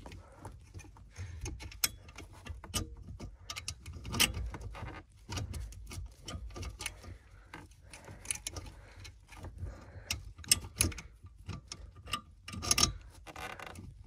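T30 Torx screws being driven into the metal mounting bracket of a passenger airbag module: irregular small clicks, knocks and scraping of the tool and screws, with a few sharper knocks scattered through.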